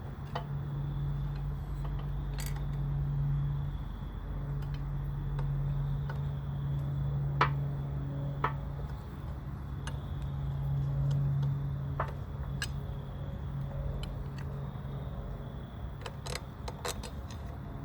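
Scattered metallic clicks and clinks of a motorcycle engine mount and its bolts being worked into place, over a steady low hum in the background.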